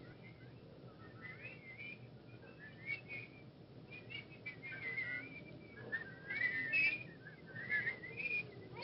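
Someone whistling a wandering, warbling tune over the steady hiss of an old film soundtrack. It grows louder from about five seconds in.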